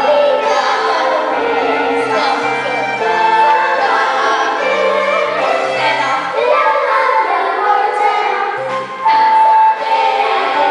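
A group of young girls singing a musical-theatre song in chorus over a piano-and-bass backing track, with a loud held note near the end.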